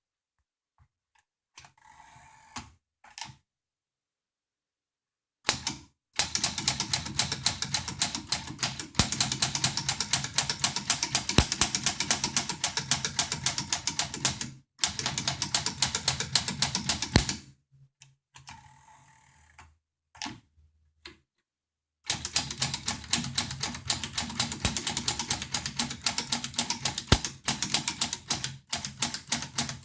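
Typing on a 1935 Smith Corona Silent manual typewriter: fast runs of key strikes in three stretches broken by short pauses, after a few faint sounds in the first few seconds.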